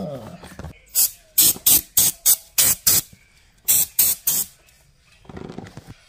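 Aerosol spray can giving a rapid string of short squirts, about ten in two runs between one and four and a half seconds in, spraying solvent onto a vacuum cleaner's plastic motor cover to loosen old glue.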